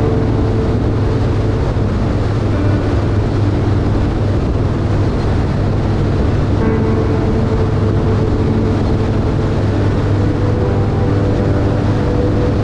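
Harley-Davidson V-twin motorcycle cruising at steady highway speed: a constant low engine drone under a continuous rush of wind and road noise.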